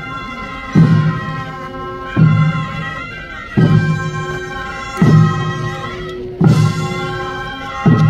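Korean traditional military procession band (chwita) playing: held wind-instrument tones over heavy drum beats at an even, slow pace, about one every one and a half seconds.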